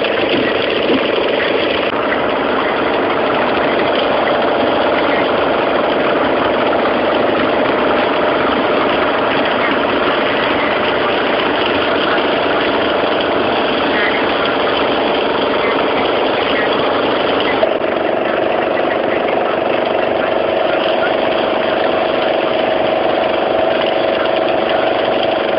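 A fishing boat's engine running steadily, a constant hum whose tone shifts slightly about two-thirds of the way through.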